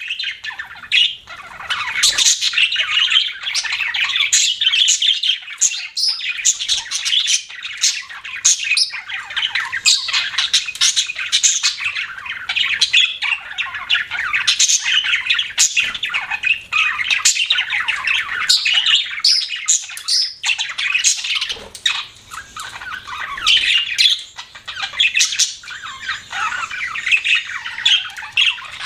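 Pet budgerigars chirping and chattering continuously, a dense overlapping stream of short, sharp, high chirps and squawks from several birds.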